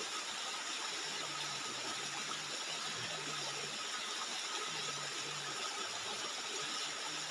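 Steady rushing of a waterfall, an even hiss with no breaks, with a faint low hum coming and going underneath.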